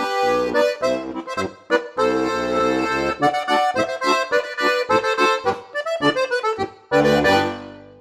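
Steirische Harmonika, a Styrian diatonic button accordion tuned A-D-G-C, playing a march in a steady rhythm of chords over bass notes. About seven seconds in it closes on a final held chord that dies away.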